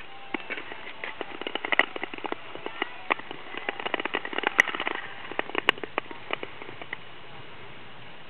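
Nordic touring skates gliding over natural lake ice: a dense run of irregular sharp clicks and crackles from the blades on the ice, with fewer clicks over the last two seconds.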